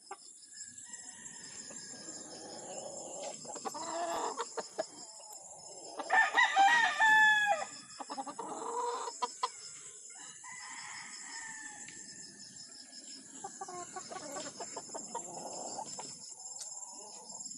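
White Claret gamecock crowing once, loudly, about six seconds in, the crow falling in pitch at its end. Quieter clucks and short calls come before and after it, over a steady high-pitched hum.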